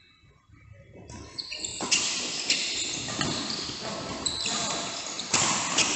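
Badminton play in a large hall: sharp racket-on-shuttle hits and court noise over a steady hiss that rises after about a second of quiet.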